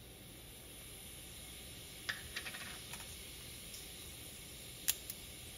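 Fenugreek, mustard and cumin seeds crackling faintly in hot oil: a low steady sizzle with a few sharp pops about two seconds in and a louder pop near the end.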